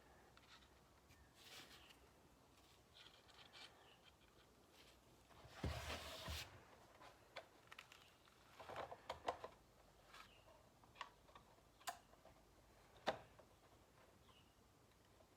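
Quiet handling noises: scattered light clicks and metallic ticks from drill bits and the bit sharpener being handled. There is a louder rustle about six seconds in, a cluster of clicks around nine seconds, and two sharper clicks near the end.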